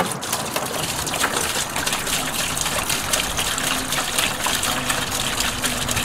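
White vinegar gushing steadily from a plastic gallon jug into a plastic pail, splashing around a submersible pump sitting in the bottom.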